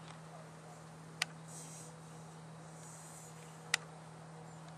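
Quiet background with a steady low hum and two sharp clicks about two and a half seconds apart.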